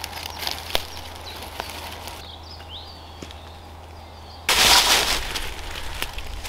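Light rustles and clicks of a lightweight tent being pitched on dry leaf litter, with a bird chirping briefly near the middle. About four and a half seconds in, a sudden, louder and sustained rustling of fabric and dry leaves starts.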